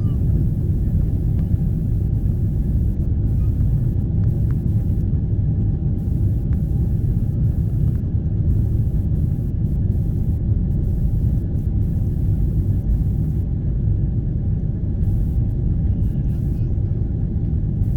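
Boeing 777-300ER cabin during the takeoff roll: its GE90 engines at takeoff thrust and the wheels on the runway make a steady, loud, low rumble, with faint steady tones above it.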